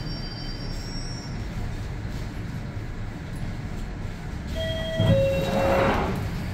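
Cabin sound of a London Underground Northern Line 1995 Stock train drawing to a stop at a platform: a steady low rumble, with a faint high wheel or brake squeal in the first second. About five seconds in come a falling two-note tone and a brief loud rush of air.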